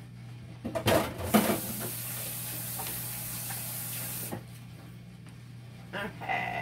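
Kitchen tap running for about three seconds with a steady hiss, then shut off, with a few knocks as it is turned on and a few clinks near the end.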